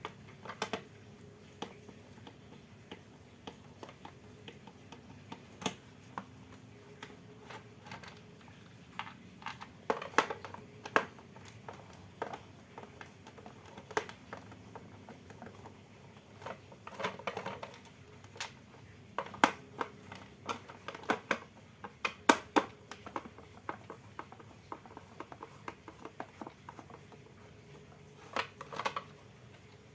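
Irregular clicks, taps and knocks of small hard parts and tools being handled, some in quick clusters, over a faint steady hum.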